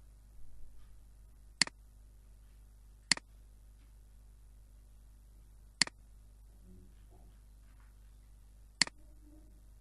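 Computer mouse clicking: four single sharp clicks at uneven intervals while dropdown menus are opened and options chosen, over a faint steady hum.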